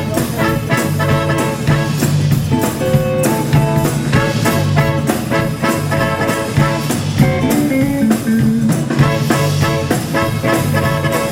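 Live rock and roll band playing the instrumental opening of a song just after the count-in, with no singing.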